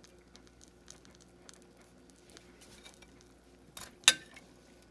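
A utensil spreading pan juices over a roasted chicken in a skillet: faint wet dabs and small clicks, with one sharp clink about four seconds in.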